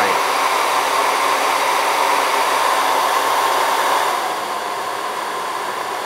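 ReproNizer 7D Plus hair dryer running on its top airflow setting (3): a steady rush of air with a high motor whine, a little loud. The whine and the rush ease slightly about four seconds in.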